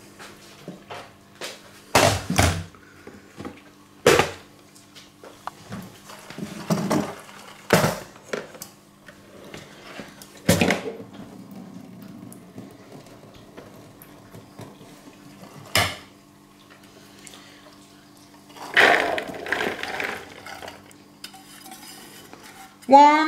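Kitchenware handled on a worktop: a stainless steel colander and a plastic mixing bowl knocked and set down, several sharp separate knocks spread through, then a longer clatter near the end as boiled chickpeas are tipped from the colander into the plastic bowl on a kitchen scale.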